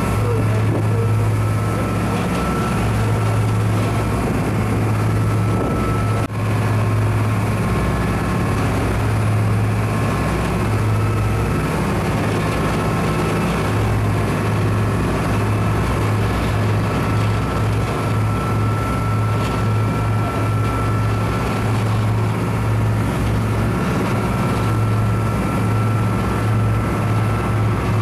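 Boat engines running with a steady low drone, under a rush of wind and water noise.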